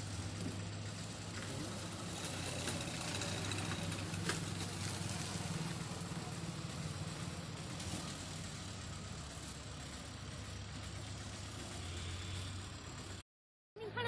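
Engine of road-paving machinery running steadily at idle, a low even drone.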